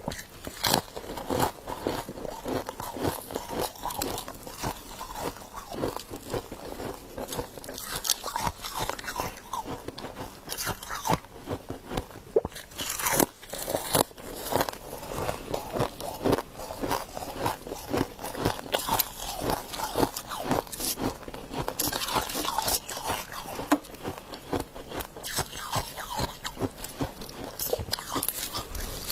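Close-up crunching and chewing of humidifier frost: many quick, irregular crackles as mouthfuls of packed frost are bitten and chewed.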